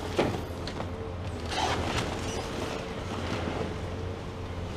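Komatsu PC490 long-front demolition excavator running, its diesel engine giving a steady low hum. Its demolition attachment crunches and scrapes through a pile of sheet metal and rubble, with a loud crash about a quarter second in and more crunching around two seconds in.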